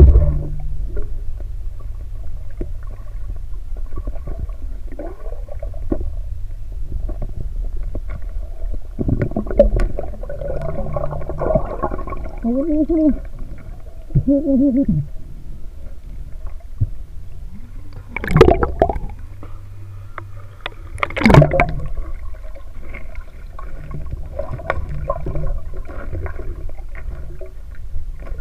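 Muffled underwater rumble and gurgling of river water heard through an underwater camera, with bubbly gurgles in the middle and two short loud sloshes about eighteen and twenty-one seconds in.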